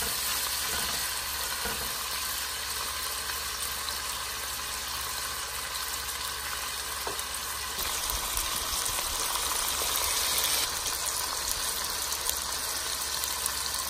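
Pieces of bacon and ham frying in rendered bacon fat in a pot, a steady sizzle that swells a little past the middle and then settles back.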